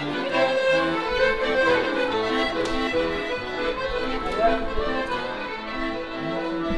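Live violin and accordion duo playing: accordion chords held under a violin melody, in a steady rhythm.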